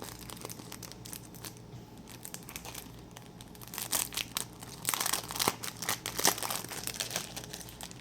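Packaging crinkling and rustling as it is opened and handled by hand: light scattered crackles at first, then louder bursts of crinkling from about four seconds in.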